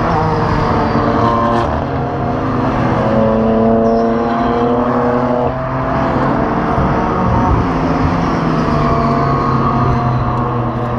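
GT4 race cars' engines at full throttle on the straight, several cars one after another, their pitch climbing and dropping back with each gear change.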